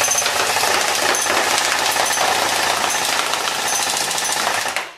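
AGM MG 42 airsoft electric gun (AEG) firing one long full-auto burst: a loud, very rapid clatter that stops just before the end.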